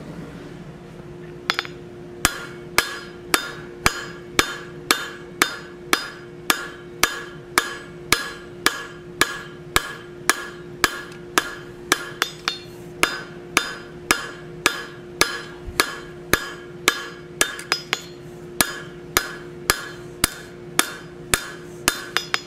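Blacksmith's hammer drawing out hot quarter-inch mild steel flat stock on an anvil: steady, even blows just under two a second, each with a short metallic ring, starting about a second and a half in. A steady low hum runs underneath.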